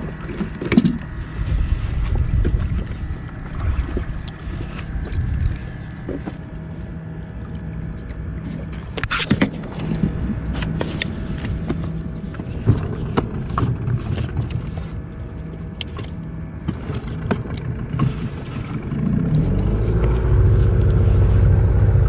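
Fishing boat's engine running steadily, with a few knocks on the hull or deck, strongest about nine seconds in. Near the end the engine pitch rises and it runs louder, as the boat speeds up.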